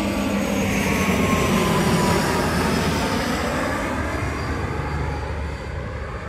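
Passenger airliner passing low overhead on its landing approach: engine noise swells to a peak about two seconds in and then fades, its whine falling in pitch as it goes by.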